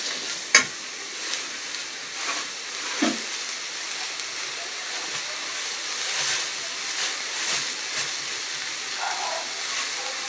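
Ground onion-tomato masala paste frying in oil in a pan, a steady sizzling hiss, with a few knocks of a utensil as it is stirred. The sharpest knock comes about half a second in.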